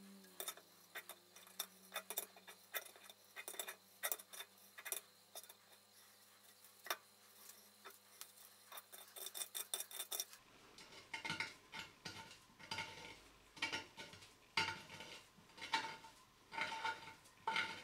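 An adjustable spanner clinking and scraping on a screw extractor as it is worked round to unscrew a broken bolt from an aluminium sump, sped up: a rapid run of small metallic clicks that grows denser and louder about ten seconds in.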